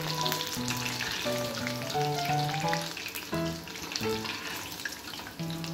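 Hot oil sizzling and crackling in a kadhai as battered chicken popcorn pieces deep-fry, while background music plays a simple melody of held notes.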